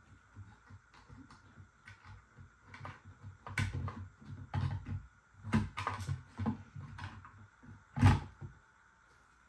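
Plastic parts of a car side-mirror assembly knocking and clicking as they are handled and pressed together while the cover is fitted over the mirror motor: a run of irregular knocks, busier after a few seconds and loudest near the end.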